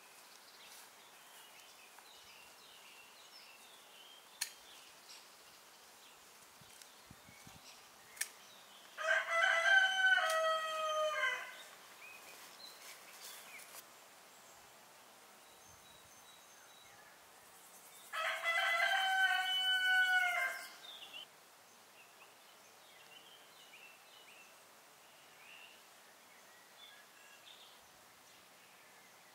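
A rooster crowing twice, each crow lasting about two and a half seconds, the two crows some nine seconds apart, with faint birdsong in between.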